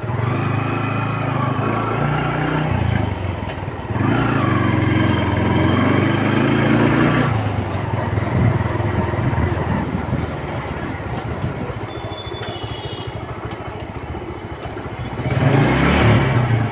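Small motorcycle engine running while the bike is ridden, its note stepping up and down with throttle and gear changes. It is louder for a few seconds after about 4 s and again in a short burst of throttle near the end.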